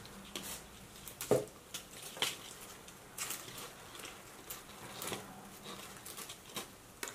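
Faint, scattered rustling and light crackling of dry, shriveled Hoya curtisii leaves and stems being picked through by hand, a dozen or so small separate clicks and rustles.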